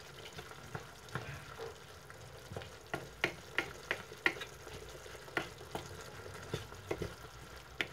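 Wooden spatula stirring sliced onions in sauce in a nonstick frying pan: scattered sharp knocks and scrapes of the spatula against the pan, most of them in the middle, over a low, steady sizzle.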